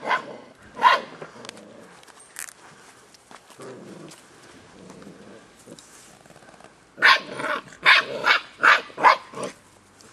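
Belgian Shepherd dogs barking at play: two barks at the start, low growling in the middle, then a quick run of barks near the end.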